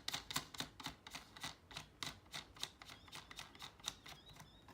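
Plastic locking ring being spun by hand onto the threaded body of a USB power socket, giving a steady run of sharp clicks, about three to four a second, that thin out near the end.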